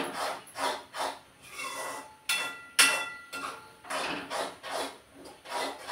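A spoon stirring and scraping thick peanut upma (semolina) around a stainless steel pan, in rhythmic strokes about twice a second. A couple of strokes knock the pan's rim and make it ring, the loudest about three seconds in.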